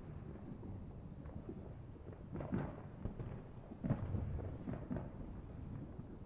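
Distant fireworks going off: low booms with a rumbling echo, the two loudest about two and a half and four seconds in, followed by a few smaller pops. A steady pulsing cricket trill sits high above them throughout.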